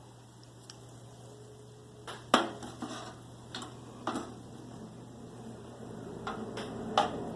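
Metal clanks and clatter from the toaster oven's broiling pan and rack as chicken cutlets are loaded for broiling, the sharpest clank about two seconds in, then several lighter knocks.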